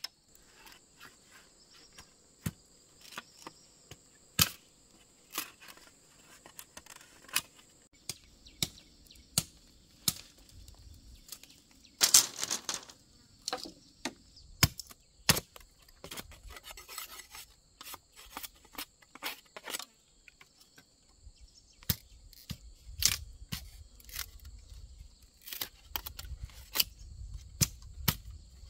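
Irregular sharp knocks and cracks of bamboo being cut and worked by hand, with a denser rasping, splitting flurry about twelve seconds in. Insects trill steadily at a high pitch behind it.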